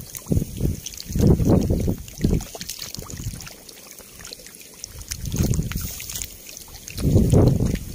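Catfish thrashing and splashing in shallow muddy water: irregular surges of sloshing and slapping, with a quieter lull in the middle.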